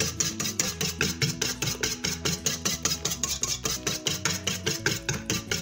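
Wire balloon whisk beating a runny egg-and-cacao batter in a stainless steel bowl, the wires clicking and scraping against the metal side in a quick, even rhythm of about six strokes a second.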